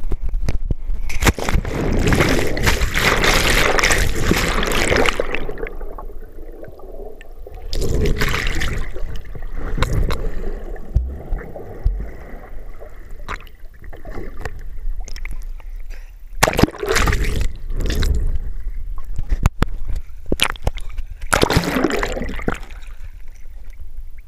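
A cliff jumper plunging into a lake, heard through a handheld GoPro: a loud rush of air and splash about a second in as he falls and hits the water, then muffled underwater bubbling and gurgling. Further bursts of splashing and sloshing come as he swims back up and breaks the surface near the end.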